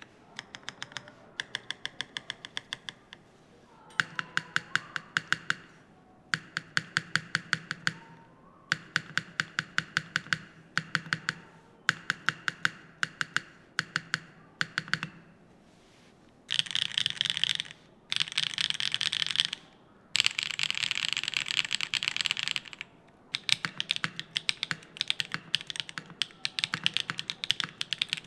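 Foxlab Lotus80 TKL mechanical keyboard with Gateron Modern Gray switches being typed on in runs of a few seconds with short pauses between, each keystroke a sharp clack; the runs in the middle stretch are faster and denser.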